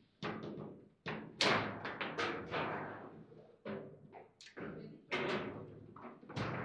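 Foosball table in play: a quick string of sharp knocks and clacks as the hard ball is struck by the figures and bangs off the table walls, with rods rattling in their bearings. The loudest knock comes about one and a half seconds in.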